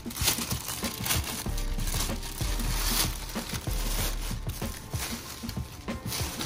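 Thin plastic shopping bag rustling and crinkling as hands rummage in it and pull at a cardboard shoebox inside.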